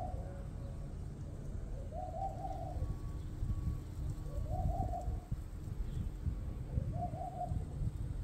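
A dove cooing a short phrase three times, about every two and a half seconds, over a steady low rumble.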